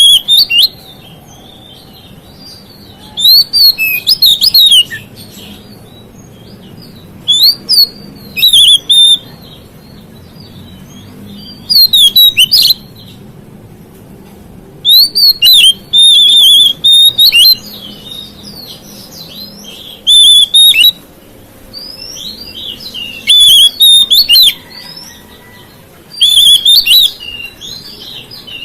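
Oriental magpie-robin singing: short bursts of loud, quick whistled and warbling phrases, repeated every few seconds with quiet gaps between.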